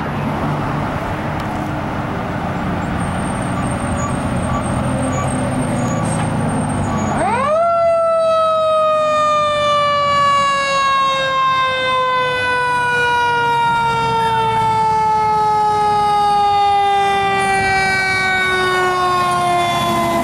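Fire apparatus engine and road noise for the first several seconds. Then, about seven seconds in, a Federal Q2B mechanical siren winds up quickly and coasts down in one long, slowly falling wail.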